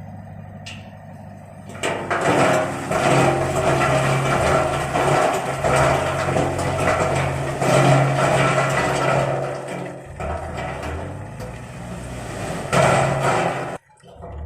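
Diesel engine of heavy road-construction machinery running: a low idle at first, then much louder under load from about two seconds in, cutting off abruptly near the end.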